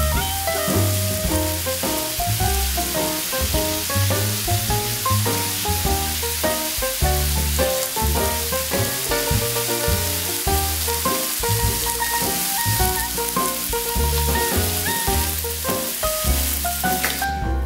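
Breakfast food (bacon, fried eggs, sausages) sizzling on the hot plate of an electric teppanyaki table grill, a steady hiss under background music with a stepping bass line. The sizzle cuts off near the end while the music carries on.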